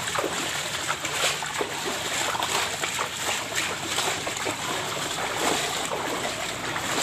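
Footsteps wading through shallow floodwater, with irregular splashes over a steady wash of water noise.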